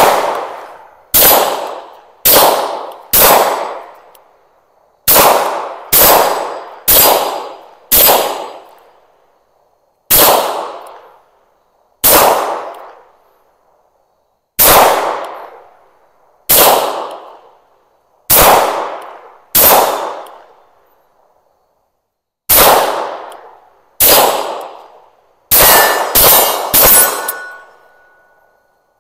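Tisas PX-9 Gen 3 9mm pistol firing a string of about nineteen loud shots at an unhurried, uneven pace, mostly a second or two apart, with three quick shots near the end. Each report trails off over about a second.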